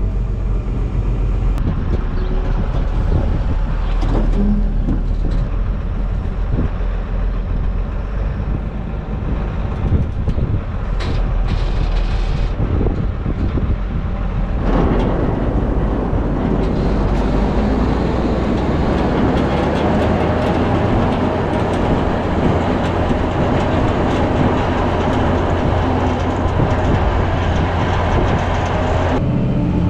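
Fendt Favorit 818 tractor running under load while the Strautmann Aperion loader wagon's scraper floor and dosing rollers push out chopped grass: a steady rattling rumble that grows fuller and louder about halfway through.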